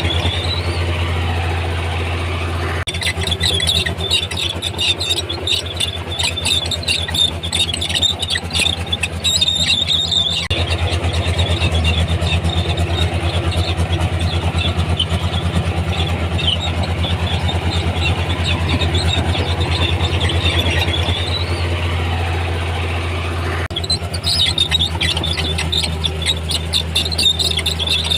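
Komatsu D31P crawler bulldozer at work: the diesel engine runs steadily under a high squeal and rapid clatter from the steel tracks. The mix of engine and track noise changes abruptly a few times.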